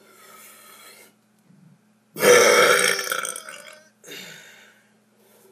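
A long, loud burp from a person, starting about two seconds in and lasting nearly two seconds, followed by a shorter, softer burp or breath about four seconds in. Before it comes a breathy sound in the first second.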